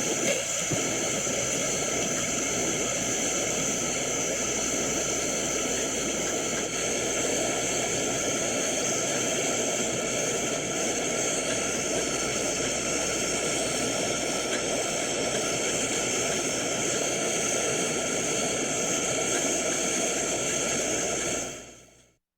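Laboratory gas burner running with a steady hiss, fading out near the end.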